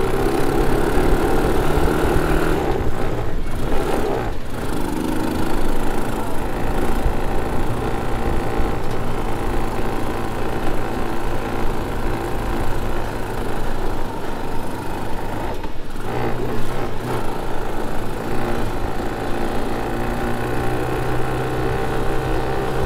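Four-wheel ATV quad bike's engine running steadily while being ridden.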